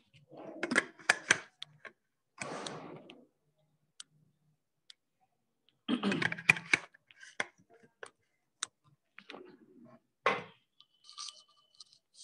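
Scattered sharp clicks and short rustling noises, coming in a few irregular clusters with quiet gaps between.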